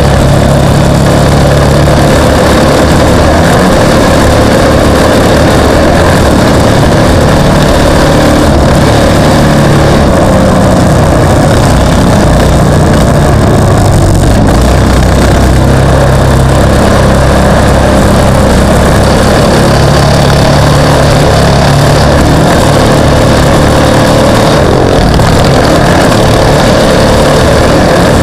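Off-road racing vehicle's engine running loud and steady, its pitch shifting slowly as it speeds up and slows down, with a constant near-full-scale level.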